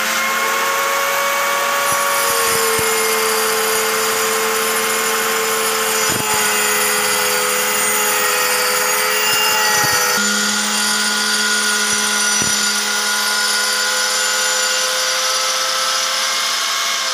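Handheld electric marble cutter with a groove diamond blade running under load as it cuts a groove along a granite slab: a loud, steady motor whine over the grinding of stone. The whine drops slightly about two seconds in, as the blade bites into the stone.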